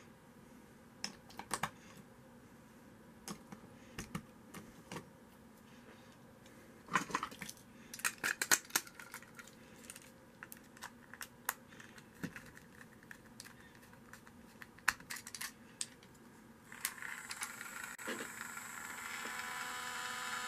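Small plastic clicks and clatters as a battery is fitted into a battery-powered toy train engine. About 17 seconds in, the engine's small electric motor switches on and runs with a steady whirring hum that grows louder.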